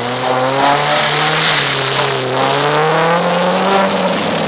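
Off-road vehicle's engine revving under load, its pitch climbing slowly and then dropping near the end, with a steady hiss over it.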